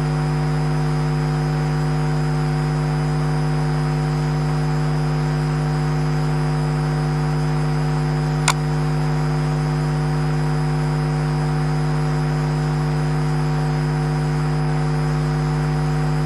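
Steady loud electrical hum on the audio feed, with several fixed higher tones over a hiss, and a single sharp click about halfway through.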